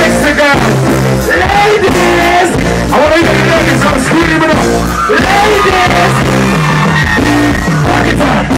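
Amplified live reggae: a male vocalist singing into a microphone over loud backing music with a heavy, steady bass line.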